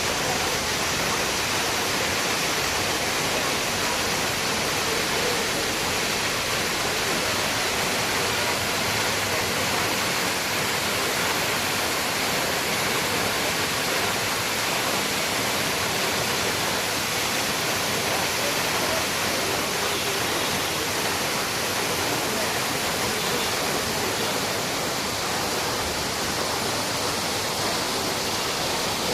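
Waterfall: a loud, steady rush of falling water that holds unchanged throughout.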